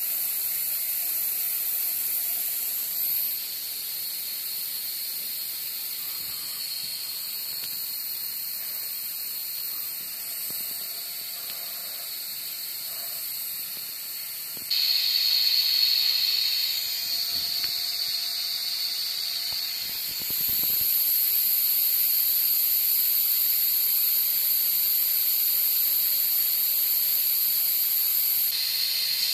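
Steady hiss of compressed air from the air-bearing 3D printer's air supply, stepping louder about fifteen seconds in and again about twenty seconds in.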